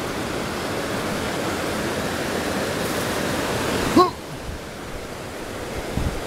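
Santa Cruz River whitewater rushing over and between boulders: a loud, steady rush. About four seconds in comes a brief, sharp, pitched sound, after which the rush sounds quieter and duller.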